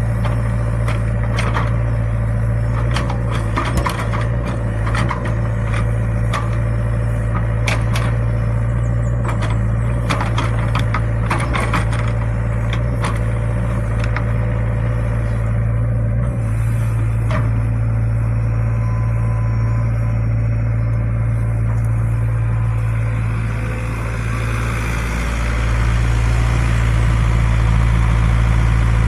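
Excavator diesel engine running steadily, with many sharp knocks and clatter through the first half or so. The engine gets louder about three-quarters of the way in.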